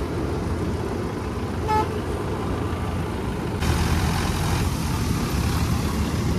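Tractor diesel engine running with a steady low rumble. A brief horn toot sounds a little under two seconds in, and the engine noise grows louder and brighter a little past halfway.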